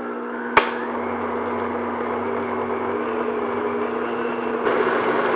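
Electric stand mixer running steadily, its beater mixing a mascarpone coffee frosting in a glass bowl. There is one sharp click about half a second in, and the motor gets louder near the end.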